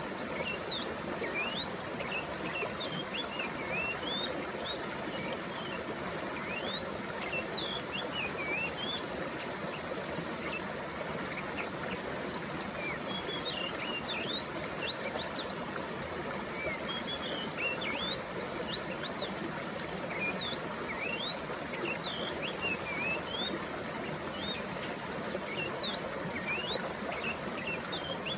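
Steady rush of flowing water, with many small birds chirping and twittering throughout in short quick notes.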